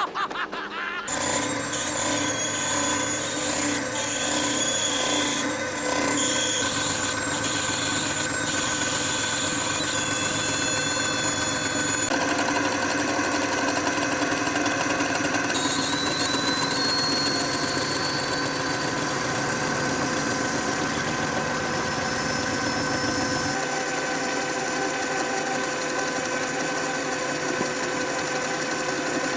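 A machine tool's electric motor running steadily with a mix of steady whining tones. It starts about a second in, and a faint high whine glides upward about halfway through.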